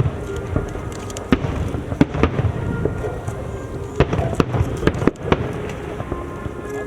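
Aerial fireworks bursting in an irregular series of sharp bangs, several in quick clusters near the middle, over a steady low rumble. Music with held notes plays beneath them.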